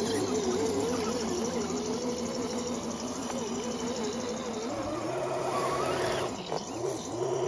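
Electric motor and gearbox whine of a 1/10-scale RC crawler driving through grass, its pitch wavering up and down as the throttle is worked, with a quick rise about six seconds in.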